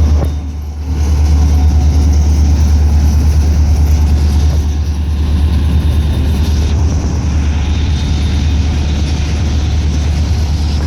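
Intermodal freight train rolling past, a loud steady rumble and rattle of the cars over a deep low drone, dipping briefly just under a second in.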